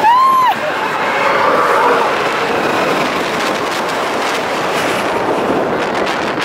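Expedition Everest roller coaster train running along its track at speed, heard from a rider's seat with wind buffeting the microphone. A brief high-pitched sound rises and falls right at the start.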